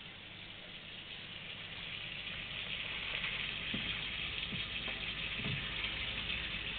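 Water running and splashing in a turtle aquaterrarium, a steady hiss that grows louder about two seconds in, with a few soft low knocks.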